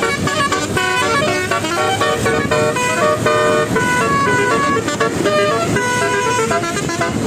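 Indonesian bus 'telolet basuri' melody horn playing a fast tune of quick stepped notes, several tones sounding at once, over a steady low rumble.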